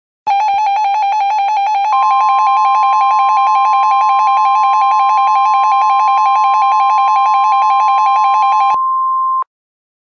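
Emergency alert attention tones: a harsh buzzing two-tone EAS attention signal comes on, and about two seconds in a steady single NOAA Weather Radio warning alarm tone joins it. The buzzing tone stops near the end, and the single tone holds a moment longer before cutting off abruptly.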